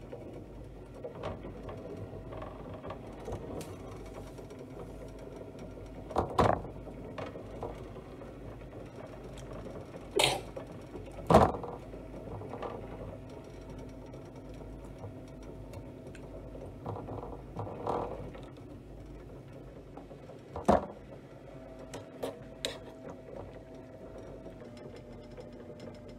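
Pots, lids and a utensil clattering in a series of sharp knocks while boiling potatoes are split between two pots. A steady mechanical hum runs underneath.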